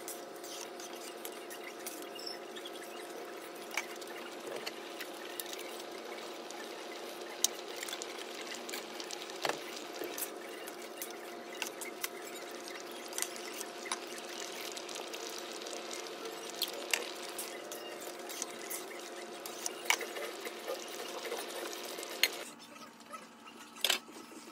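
Thin khichuri of rice, lentils and vegetables simmering in a steel pot, bubbling with scattered small pops over a steady hum. The hum stops near the end while the pops go on.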